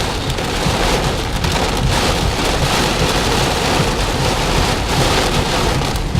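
Heavy downpour: rain pouring down in a loud, dense, steady hiss.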